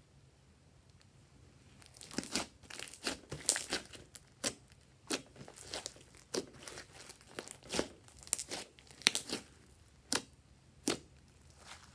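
Pink glitter slime pressed and kneaded by fingers, giving an irregular run of sharp wet pops and crackles. The popping starts about two seconds in.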